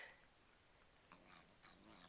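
Cat eating treats: faint crunchy chewing clicks, then a faint low growling noise from about halfway through, the sound he makes while eating treats.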